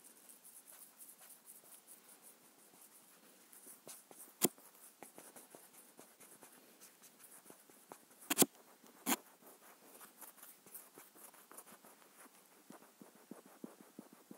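A stylus rubbing and tapping on a tablet's touchscreen as handwritten ink is erased, making a stream of faint scratchy ticks with a few louder clicks about four and a half seconds in and again around eight to nine seconds in.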